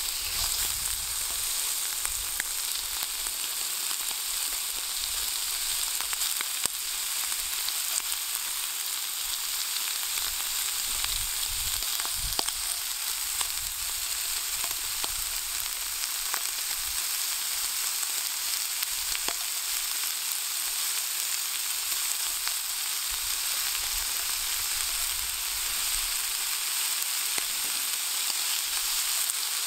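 Pieces of horumon (offal) sizzling steadily in a hot frying pan, with many small crackling pops from the fat.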